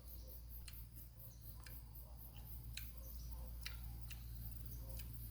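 Faint sharp ticks, about one a second, over a low steady hum.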